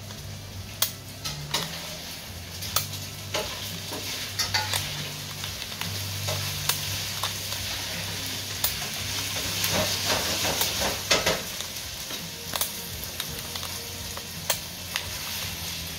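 Servo motors and sliding 3D-printed plastic segments of a mechanical seven-segment clock changing its digits: sharp plastic clicks at irregular intervals over a low servo hum that comes and goes in spells of about a second, with a dense run of clicking and rattling about ten seconds in.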